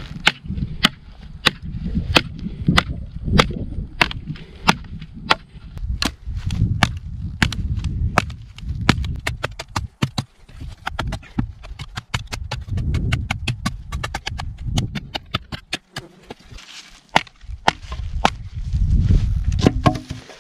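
Victorinox Venture fixed-blade knife chopping into a tree: a long run of sharp wooden chops, about two a second at first and quicker in the middle, with a brief pause near the end.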